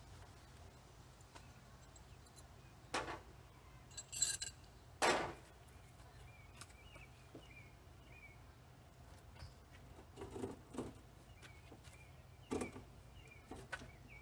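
Scattered metallic clicks and clinks of U-bolt hardware (bolts, nuts and washers) being handled and fitted to a wooden board. There is a short jingle about four seconds in, and the loudest clack comes just after it.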